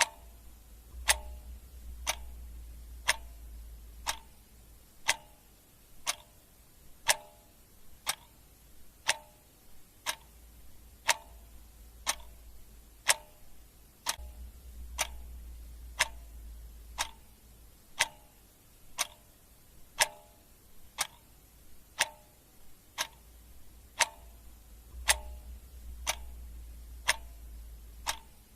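Clock ticking steadily, about once a second, with a faint low hum that swells and fades a few times.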